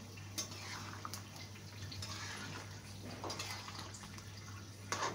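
Long metal spoon stirring chunks of eggplant and potato in a wok of curry broth, the liquid sloshing, with a few light clinks of the spoon against the pan.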